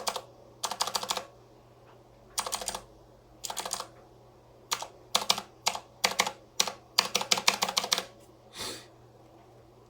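Keys of a mechanical keyboard being pressed in irregular runs of quick clicks and single taps, stopping about eight seconds in.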